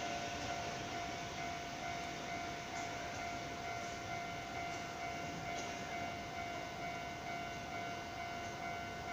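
Sangi Railway 101 series electric train (ex-Seibu 401 series) giving off a steady whine at unchanging pitch, layered over a hiss.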